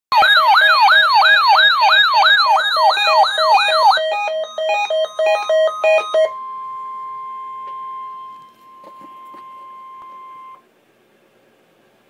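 Weather radio receivers sounding their test alert: a siren-like whoop rising about twice a second over a pulsing beep, then pulsed beeping alone, which stops about six seconds in. A steady single tone, the weather radio's warning alarm tone, follows and cuts off sharply about ten and a half seconds in.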